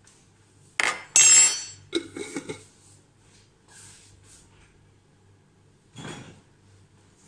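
Kitchenware being handled: a knock, then a loud metallic clink that rings briefly about a second in, a few lighter knocks after it, and another clatter near the end.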